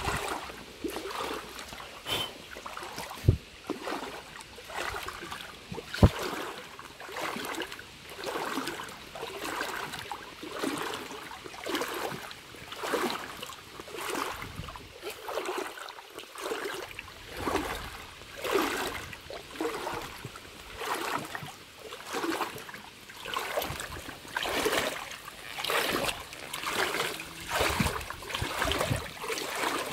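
River water splashing and sloshing in a regular rhythm, about one splash every second and a quarter, after two sharp knocks in the first six seconds.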